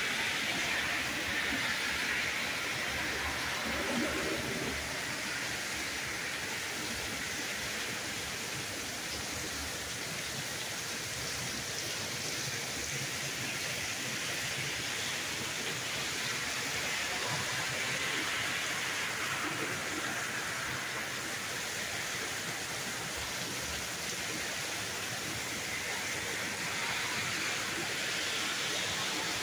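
Torrential rain pouring down in a steady, even hiss.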